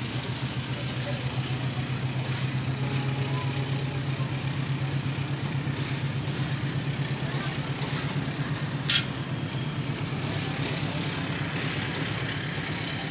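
Passenger train's diesel engine idling: a steady low throb, with one short sharp click about nine seconds in.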